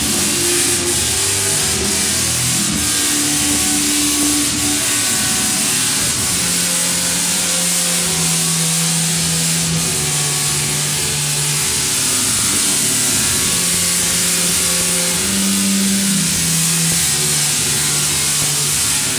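Large Tesla coil discharging: a loud, steady buzzing crackle of high-voltage sparks, with low held notes underneath that change pitch every second or two.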